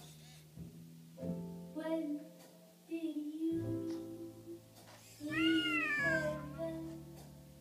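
Background music with held notes, and about five seconds in a single meow that rises and then falls, from the NeCoRo robotic cat.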